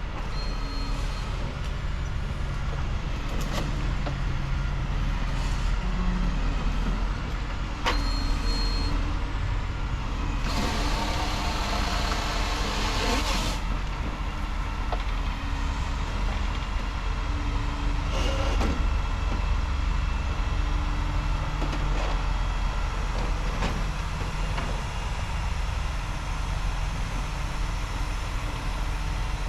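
Truck engine running steadily, with a burst of hissing noise lasting about three seconds near the middle and a few sharp clicks.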